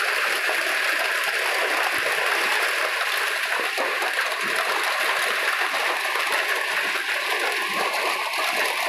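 Hailstorm: hail and rain falling in a dense, steady patter.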